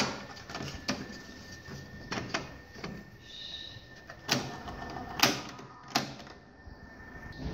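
Hard plastic clicks and clunks of a Sharp CMS-R260CD mini system's cassette deck being worked by hand, as its keys are pressed and the cassette door is opened. Several sharp clicks are spread through, with three louder ones in quick succession past the middle.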